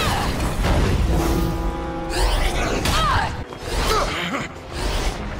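Background score with held notes, over cartoon fight sound effects with several sudden hits.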